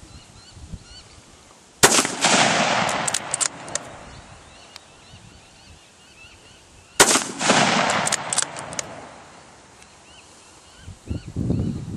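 .222 Remington rifle fired twice, about five seconds apart: each shot is a sharp crack followed by a rolling echo lasting about two seconds. Birds chirp faintly between the shots.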